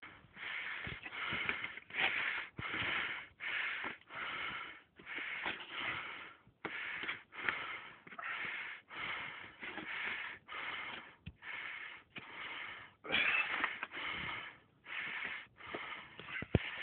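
A person breathing hard in quick, rhythmic breaths, panting from exertion, roughly two breaths a second with brief pauses. A few sharp knocks come near the end.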